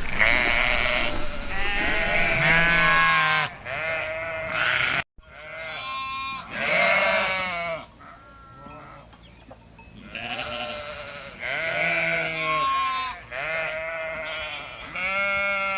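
Farm animals bleating: a series of loud, wavering calls, one after another, broken by a sudden silent gap about five seconds in before more bleats follow.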